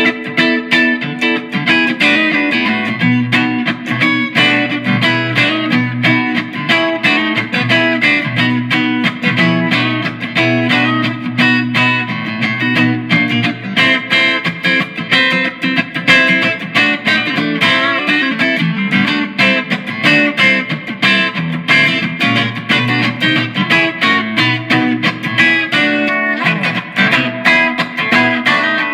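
Epiphone Les Paul Junior electric guitar with a P90 pickup, played through an amplifier: a continuous run of picked notes and strummed chords, several attacks a second.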